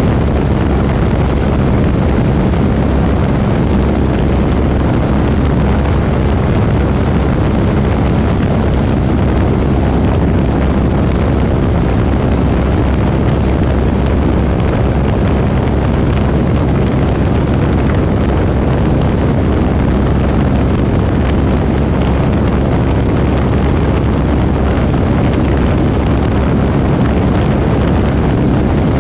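Light propeller plane's piston engine and propeller running steadily and loud, with a low hum and no change in pitch.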